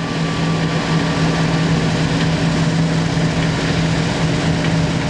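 Combine harvester running steadily, a constant engine hum under a broad rushing noise.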